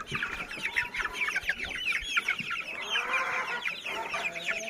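A flock of chickens calling: many short, high-pitched peeps and clucks overlapping one another.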